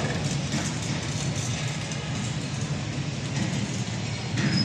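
Farm machinery, a tractor-driven wheat thresher or its tractor, running steadily with a low rumble.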